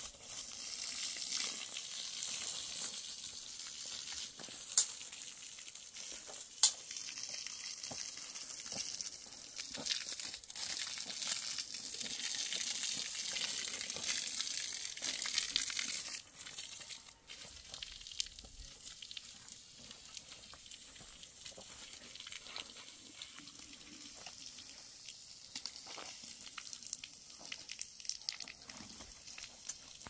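Water gushing from a hose and splashing onto sand and cinder blocks, with two sharp knocks in the first several seconds. The spray stops about halfway through, leaving soft rustling and scattered clicks.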